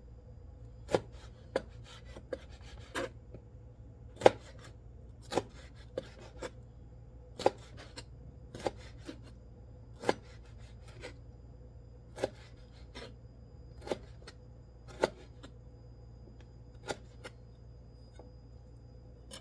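Chef's knife chopping through tomato onto a plastic cutting board while dicing Roma tomatoes into small cubes: single sharp knocks at an uneven pace of about one a second, stopping near the end.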